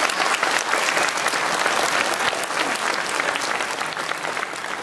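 Audience clapping after a performance, the applause slowly dying away.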